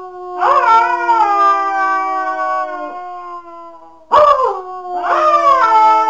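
A pack of wolves howling in chorus on a BBC sound-effects recording: long, overlapping howls, each rising at its start and then held with a slow downward slide, with a fresh round of howls starting about four seconds in.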